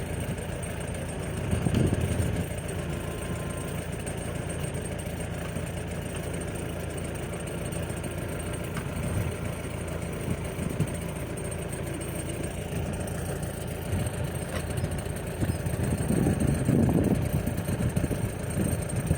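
Heavy machine engine, most likely the excavator's, running steadily at low revs, louder about two seconds in and again near the end.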